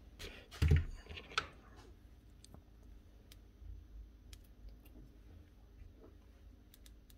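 A few light clicks and knocks from handling parts on a workbench, the loudest about a second in, then scattered faint ticks.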